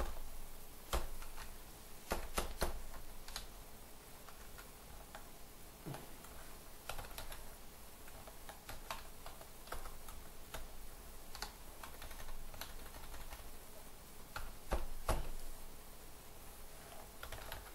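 Typing on a computer keyboard: irregular keystrokes, with a few louder strikes a couple of seconds in and again late on.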